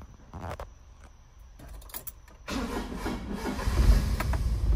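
Honda Acty kei truck's small three-cylinder engine started: a few quiet clicks and cranking, then it catches about halfway through and runs steadily, getting louder about a second later.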